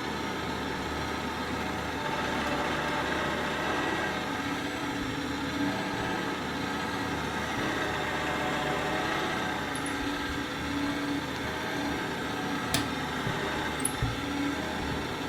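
Parkside bench pillar drill running steadily with its motor humming while the bit drills a hole, with a sharp click about thirteen seconds in.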